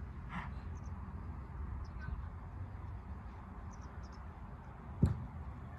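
Steady low outdoor rumble with a few faint bird chirps. About five seconds in comes a single sharp thud of a football being struck.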